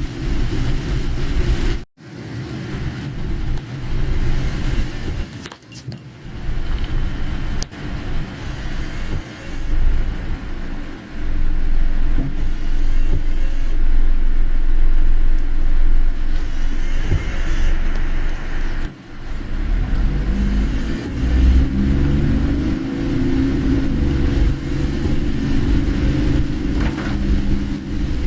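Car driving on a rain-soaked road, heard from inside the cabin: steady engine and tyre rumble with a hiss of rain and road spray. The sound briefly cuts out twice. About two-thirds of the way in, the engine note climbs as the car accelerates.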